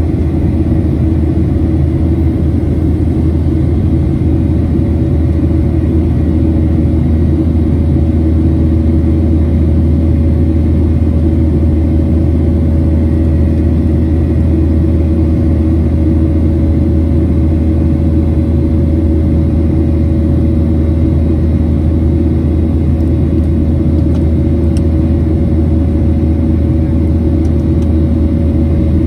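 Steady airliner cabin noise inside a Boeing 737 in flight, heard from a seat over the wing: a loud, even low rumble of engines and airflow with a few faint steady tones held above it.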